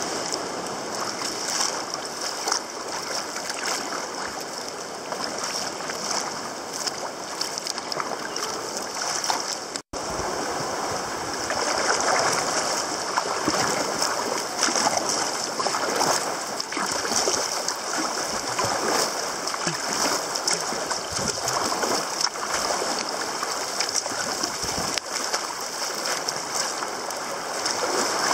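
Sea water splashing and rushing against a sea kayak's hull as it is paddled through choppy sea. The sound cuts out for an instant about ten seconds in, then comes back a little louder.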